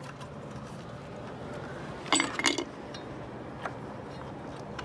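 Light clinking and clicking of hands handling parts: a short cluster of clinks about two seconds in and a single faint click later, over a low steady hum.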